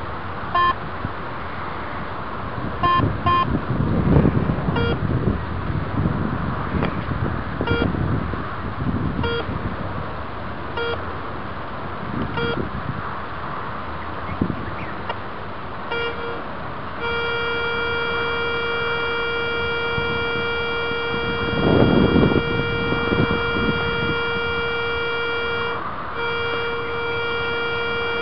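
Garrett Ace 250 metal detector beeping in short blips as its coil is swept over the ground. About two-thirds of the way through it settles into a steady unbroken tone, which stops briefly and resumes near the end. A couple of bursts of rustling noise are mixed in.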